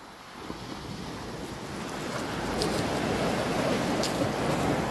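Surf breaking and washing over a pebble beach, swelling louder about two seconds in, with a few faint clicks.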